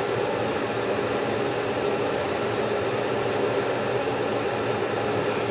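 Kent 10 hp CNC bed mill running, a steady whirring hum of its motors while the X-axis table feed is driven.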